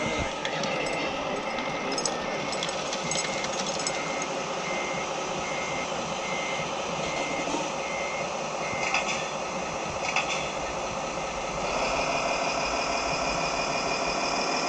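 Reversing beeper on a scale RC truck or construction machine, a single high-pitched beep repeating about twice a second over the running of the models' motors and sound modules, stopping about nine seconds in. Near the end a louder buzzing machine sound comes in.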